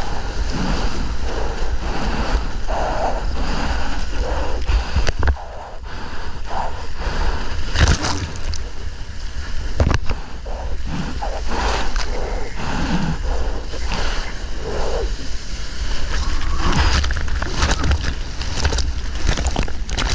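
Seawater sloshing and splashing right at a GoPro's microphone as a surfer paddles through the surf, with wind rumbling on the microphone and scattered knocks of water against the camera.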